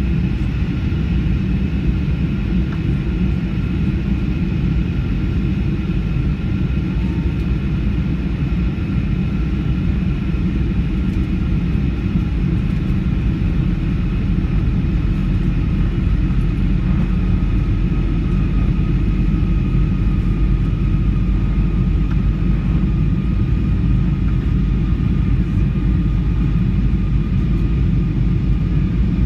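Cabin noise inside a Boeing 737 airliner on its landing approach: a steady low rumble of engines and airflow, with a faint steady whine above it.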